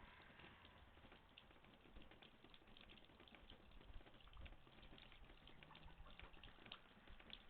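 Near silence with faint, irregular ticking and crackling scattered throughout.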